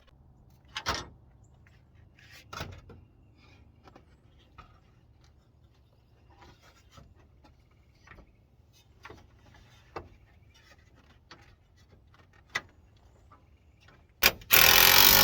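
Hand work on the truck's cooling system: scattered light clicks and knocks of parts and tools being handled, then a loud, rough scraping rub for about a second near the end.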